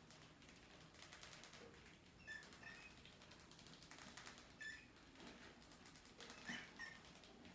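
Faint short high squeaks in three small clusters, two or three quick calls each, over quiet background hiss.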